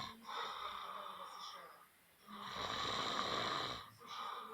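A person snoring, breath after breath: each snore lasts about a second and a half, with short pauses between them.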